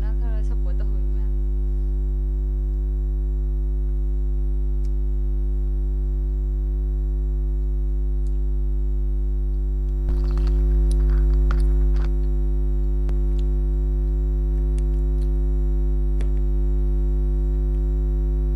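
A loud, steady electrical hum with a stack of evenly spaced buzzing overtones, a recording fault that drowns the audio. About ten seconds in there are two seconds of louder clicking and rustling under the hum.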